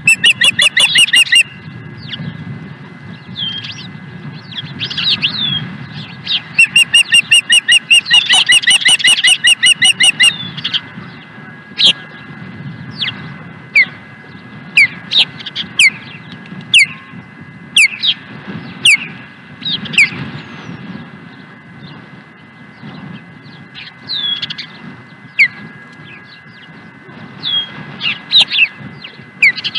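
Ospreys calling on the nest: a rapid run of loud, piping chirps, about six a second, near the start and again for about four seconds a quarter of the way through. After that come single sharp, downslurred chirps about once a second.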